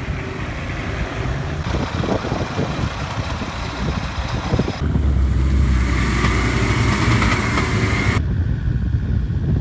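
Off-road 4x4 and tractor engines running and revving while working through mud, in a string of short clips whose sound changes abruptly about five seconds in and again about eight seconds in. The middle stretch carries a heavy low engine rumble.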